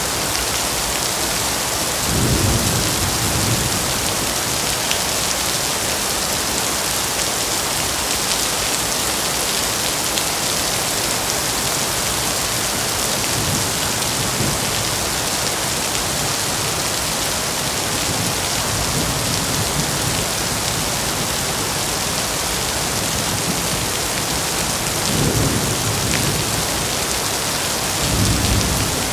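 Heavy rain falling steadily, with low rolls of thunder: one about two seconds in, fainter ones midway, and two more near the end.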